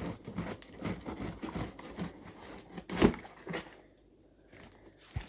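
Cardboard box and paper packing being handled and pulled open: a run of irregular short rustles and scrapes, with one sharp knock about three seconds in.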